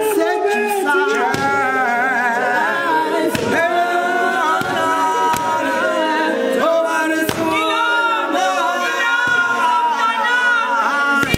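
Male voices singing together a cappella in harmony, with sharp hand claps here and there.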